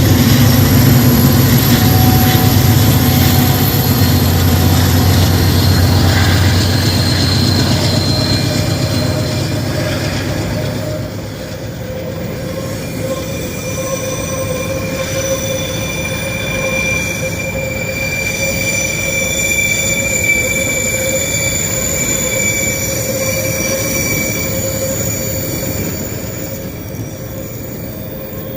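Diesel freight locomotives working at full throttle up a grade, their low engine drone easing off about ten seconds in. Then come steady high-pitched wheel squeals from the passing wagons.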